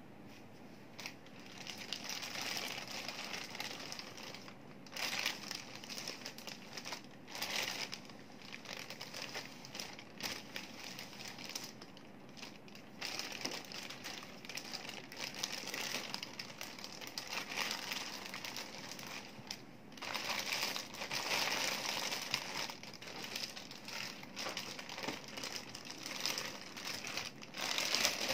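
Clear plastic packaging bag crinkling and rustling as hands pull it off a printer, in irregular spells with short pauses.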